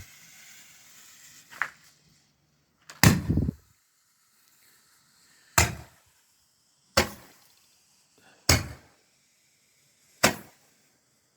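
Consumer Roman candle firing: a small pop, then five sharp shots, roughly one every one and a half seconds, each a single thump with no crackle after it.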